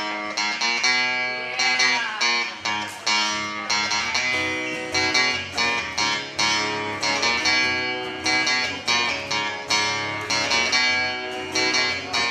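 Acoustic guitar played as a song's intro, chords struck in a steady rhythm and left to ring.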